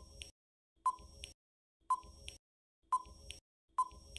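Quiz countdown timer sound effect counting down the seconds to answer: five short ticks about a second apart, each a brief beep followed by a fainter click.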